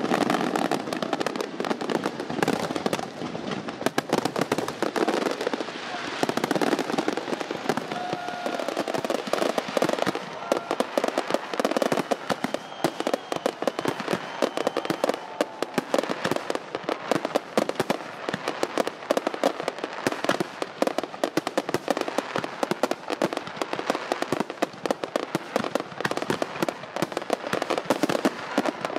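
Fireworks going off continuously: a dense, rapid crackle of many pops and bangs, unbroken throughout.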